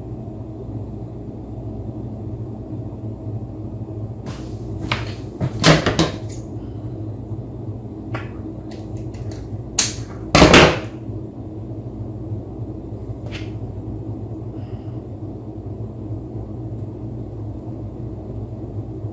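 Handling noise from working on a network cable with hand tools: a few scattered clicks and knocks over a steady low hum, the loudest a half-second clatter about ten and a half seconds in.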